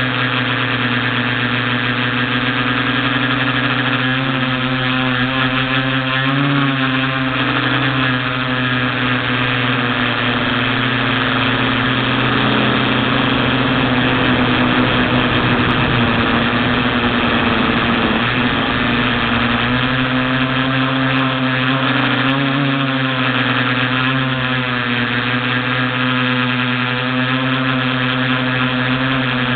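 Quadcopter's electric motors and propellers droning steadily, heard through its onboard camera, the pitch wavering with throttle changes. Midway through, a rushing noise swells over the hum for several seconds.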